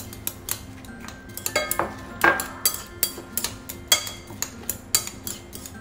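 Chopsticks stirring rolled oats into beaten egg in a ceramic bowl: quick, irregular clicks and scrapes against the bowl, several a second.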